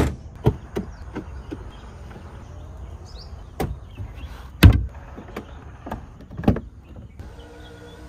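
Range Rover interior fittings being worked: a run of sharp clicks and thunks, the loudest about halfway through as the boot floor panel is handled. Near the end the steady hum of an electric motor begins as a power-folding rear seat starts to move.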